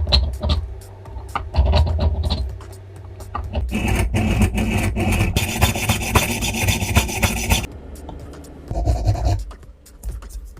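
Rasping, scraping strokes of hand-tool work on a workpiece, with scattered sharp clicks and knocks. A denser, steadier stretch of scraping runs through the middle and stops abruptly about three-quarters of the way in.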